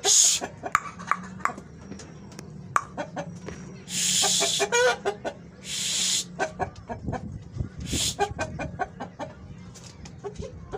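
Heera aseel chickens clucking in short, scattered calls, among many small clicks and a few brief hissing noises.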